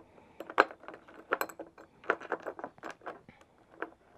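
Small metal bolts and a mounting bracket clicking and clinking irregularly as they are handled and threaded by hand into a plastic snorkel body. The sharpest clicks come about half a second in and near a second and a half in.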